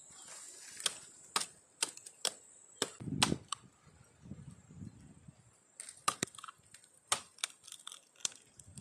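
Sharp, irregular snaps and knocks of dry wood, a dozen or so in two runs with a pause of about two seconds between them, as branches and bark are broken off a tree by hand.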